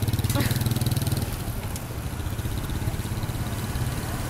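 A motorbike engine running close by, loudest for about the first second and then fading into general street traffic.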